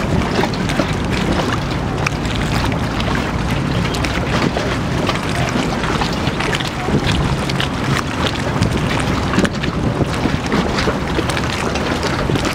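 Wind buffeting the microphone: a loud, steady low rumble with irregular crackles.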